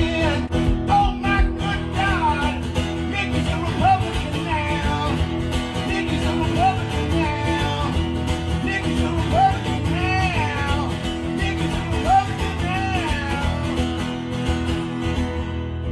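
Acoustic guitar strummed steadily in a live solo performance with no vocals, with a higher melody line that bends up and down over the chords.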